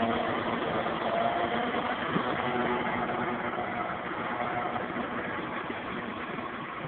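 John Deere 6210R tractor's diesel engine running steadily under load as it pulls a laser land leveller through loose soil, with a broad rushing noise under the engine note. It fades gradually as the tractor moves away.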